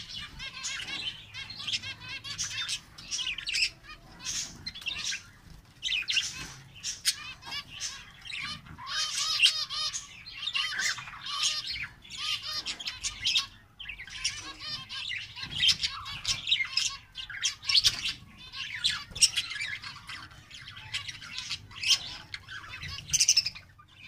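Mixed calls of budgerigars and zebra finches: a busy, continuous stream of chirps, squawks and wavering warbling chatter, broken by brief pauses.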